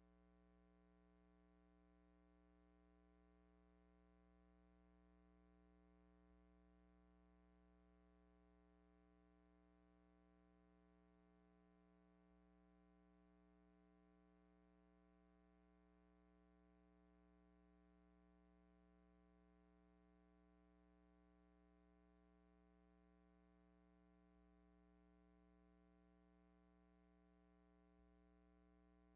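Near silence with a faint steady hum.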